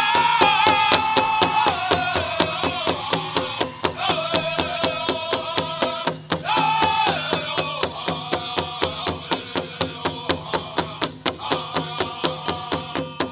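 Powwow drum group playing a Southern-style song: the big drum beaten in a fast, even pulse while the singers chant in high voices, each phrase starting high and stepping down in pitch. A new phrase begins about six seconds in.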